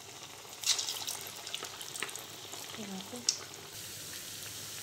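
Moong dal vadas deep-frying in hot oil: a steady sizzle with scattered crackles and pops.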